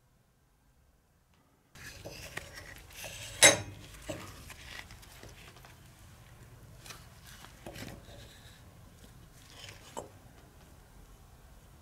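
Near silence at first, then handling noise of the Velosolex rear wheel hub and its freshly removed freewheel: scattered metallic clinks and knocks, the loudest a sharp clank a few seconds in, with another click near the end.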